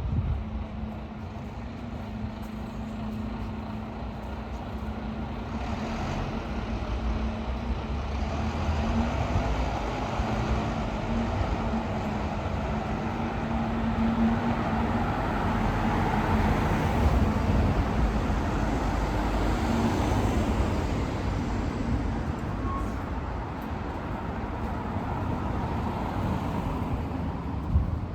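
Urban road traffic: motor vehicles running on the street, with a steady low engine hum through the first half. A vehicle passes, loudest about two-thirds of the way through.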